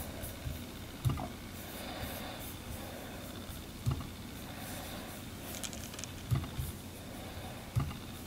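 Force Touch trackpad of a 2016 15-inch MacBook Pro being clicked by a finger: a few short, soft clicks with a low thump, a second or more apart, over faint room hiss.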